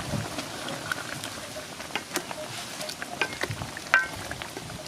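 Pot of chicken green curry simmering while a wooden spatula stirs through the chicken and vegetables. Small scattered clicks, and one sharp knock of the spatula against the aluminium pot about four seconds in.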